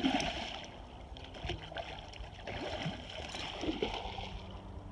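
Water splashing as a hooked coho salmon thrashes at the surface, loudest right at the start, followed by irregular sloshing and splashing as a dog wades through the shallow water toward it.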